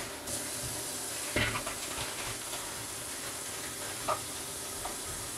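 Kitchen tap running steadily into the sink, a constant hiss, with a couple of light knocks of items being handled in the sink.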